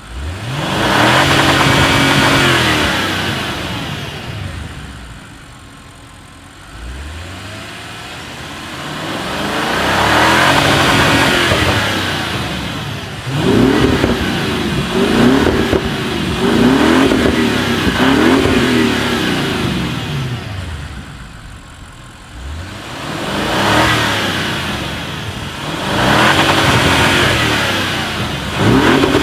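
Audi RS6 Performance's 4.0 TFSI twin-turbo V8 with an Akrapovic exhaust, revving up and falling back several times. In the middle comes a quick run of rises in pitch, each one dropping and climbing again.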